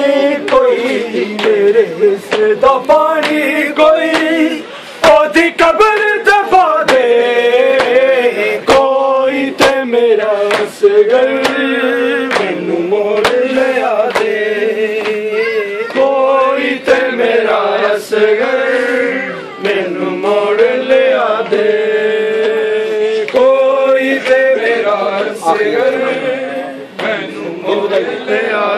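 Men chanting a Muharram mourning lament, a lead voice carrying the melody with others joining, over sharp slaps of hands beating on chests (matam).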